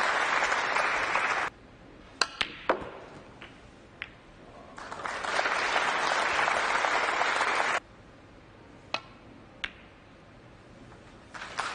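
Snooker audience applause that cuts off abruptly twice, alternating with quiet stretches of sharp snooker-ball clicks as the cue tip strikes the cue ball and the balls collide: a quick cluster of three clicks about two seconds in, then single clicks around four, nine and ten seconds.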